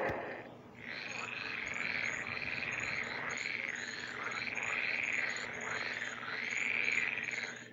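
Chorus of frogs croaking, with high chirps repeating a few times a second: a swamp ambience.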